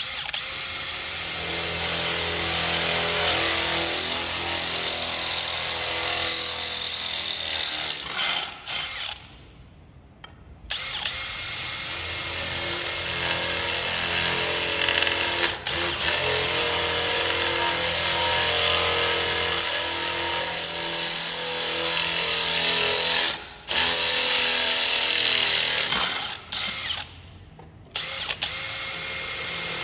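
Makita 40V Max XGT brushless drill boring into metal with a cobalt drill bit, in several runs of a few seconds each with short stops between them. Each run rises in level with a high-pitched cutting squeal as the bit bites.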